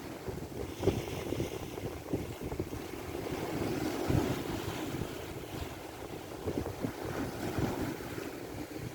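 Strong wind buffeting the microphone in uneven gusts on a small boat at sea, with a low rumble and irregular thumps, over the wash of waves.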